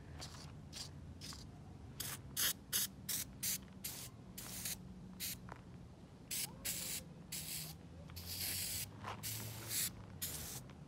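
Aerosol spray can being sprayed onto a bare steel car subframe in many short hissing bursts, with one longer spray near the end.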